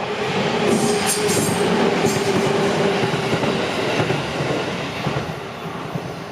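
JR Tokaido Line electric passenger train passing close by. The rumble of its wheels on the rails swells in the first second, holds, and fades toward the end, with a steady hum and a few sharp clicks of wheels over rail joints.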